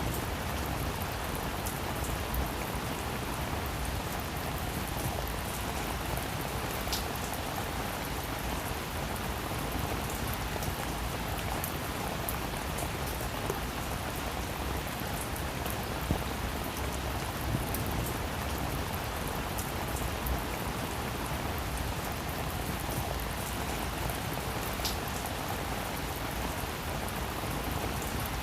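Heavy rain falling steadily, with scattered individual drops ticking on a surface.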